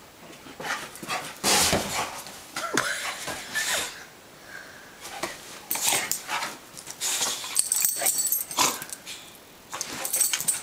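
Boxer puppy barking and making play noises in short, irregular bursts while racing around, the loudest burst about one and a half seconds in.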